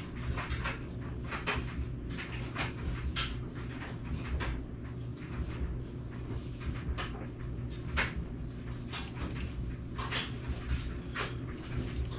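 Click-type torque wrench being adjusted to a higher setting: irregular short clicks and rattles, over a steady low hum.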